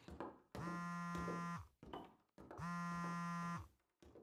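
Mobile phone vibrating on a table with an incoming call: two steady buzzes, each about a second long, about a second apart.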